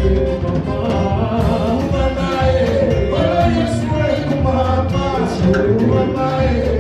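Live gospel praise-and-worship band playing with singing voices over a strong, steady bass.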